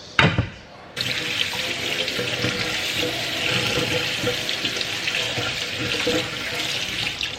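A sharp thump, then a tap running water into a sink for about six seconds before it is turned off near the end.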